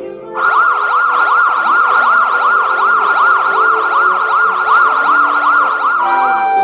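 Electronic siren sweeping up and down in a fast yelp, about three sweeps a second, over faint background music. About six seconds in it gives way to a steady two-tone alert, the EAS attention signal.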